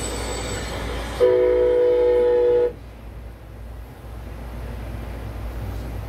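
Train horn sounding one long chord of several notes for about a second and a half, over the steady rumble of a passing train, heard through a TV's speaker.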